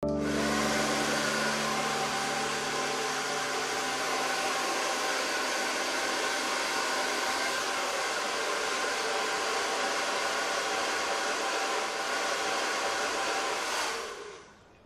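Handheld hair dryer running steadily, then switched off near the end, its noise winding down over about a second.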